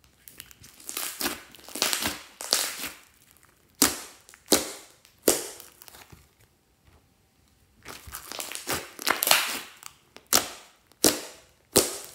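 Clear slime mixed with eyeshadow being squeezed, poked and stretched by hand: stretches of wet, sticky crackling, and sharp pops, three about half a second apart near the middle and three more near the end.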